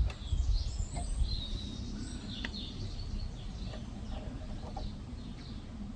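Small birds chirping and calling over a steady low background rumble, with a few light clicks in the first couple of seconds.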